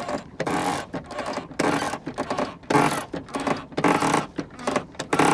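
Sailing winch cranked by hand with a winch handle, clicking and grinding in a repeated rhythm of about two strokes a second as the line is hauled in to fold the trimaran's float in under the main hull, with a faint squeak in some strokes.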